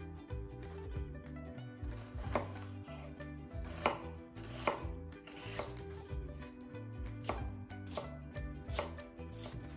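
Kitchen knife slicing an onion on a bamboo cutting board: each cut ends in a sharp knock on the wood, at about one a second.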